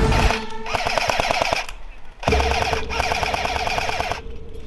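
Airsoft gun firing two full-auto bursts, a short one of about a second and then a longer one of about two seconds, each a rapid, even run of shots.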